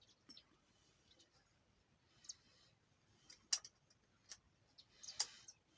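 Metal piston rings clicking and ticking as they are worked onto the piston of a Petter diesel engine: a few sharp, separate clicks spread through a quiet stretch, the loudest about three and a half and five seconds in.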